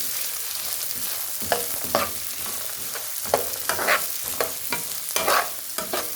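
Carrots frying in groundnut oil in a frying pan, sizzling steadily, while a utensil scrapes and stirs them in irregular strokes.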